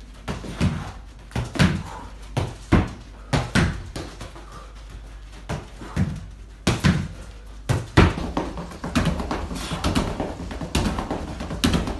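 Football being passed against a wooden wall and controlled on artificial turf: repeated sharp thuds of boot on ball and ball on wall, about one to two a second. After about eight seconds the knocks come quicker and closer together, footfalls of a fast footwork drill.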